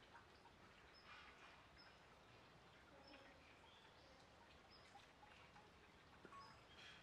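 Near silence: faint outdoor ambience with short high chirps of a small bird, repeated about once a second.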